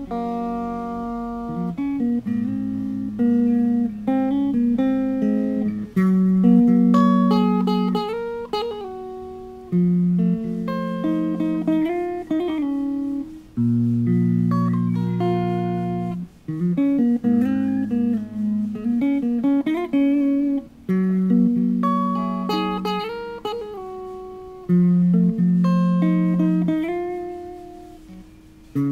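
Custom-built SYN G guitar being played in a sound test: picked single notes and chords with sharp attacks, each left to ring and decay, in a slow, unhurried run. The last chord fades out near the end before a new strum.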